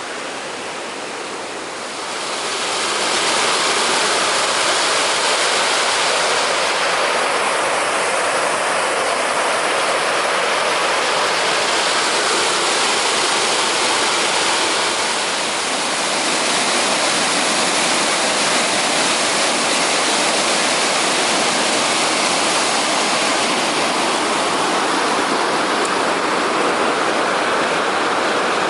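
Waterfall rushing: a dense, steady roar of falling water that grows louder about two seconds in and then holds steady.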